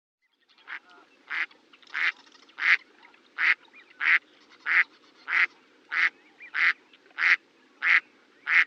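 A duck quacking over and over in a steady rhythm, about a dozen short quacks, roughly three every two seconds.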